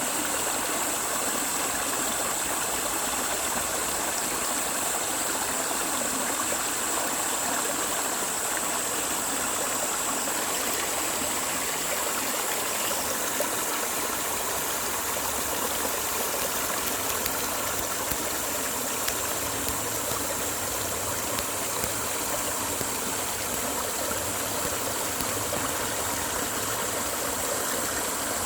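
Mountain valley stream flowing: a steady, even rush of running water.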